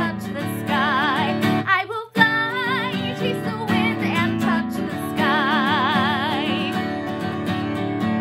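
A song with a singer holding long notes with wide vibrato over guitar accompaniment, with a brief break about two seconds in.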